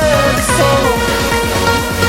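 Electronic dance-pop music with a steady beat and a gliding melodic line, in a gap between sung lines.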